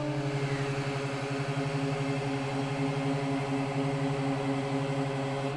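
Hydraulic press pump running under load as the ram presses a titanium cube at about 50 tonnes: a steady low hum with a fast, even pulsing.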